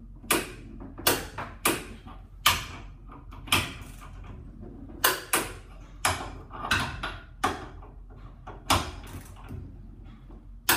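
Click-type torque wrench set to 360 N·m snapping over again and again as it is pulled on a bolt, about a dozen sharp metallic clicks at uneven intervals. Each click means the wrench has reached 360 N·m without turning the bolt.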